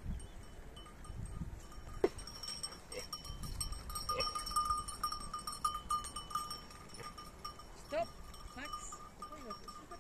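Bells on a flock of sheep clinking and ringing as the sheep move. A sheep bleats once near the end.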